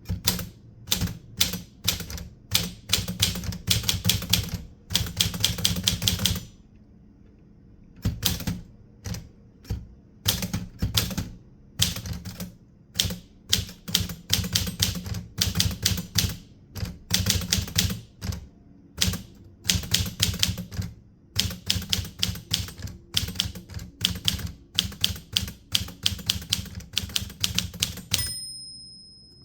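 Typewriter keys being struck in quick runs of keystrokes, broken by short pauses, the longest about six seconds in. Near the end, a single bell ring that fades out: the typewriter's margin bell, marking the end of a line.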